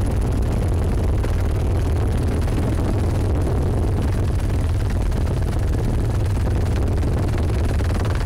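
Steady, loud helicopter engine and rotor noise heard from aboard the aircraft, a constant low rumble with a hiss over it.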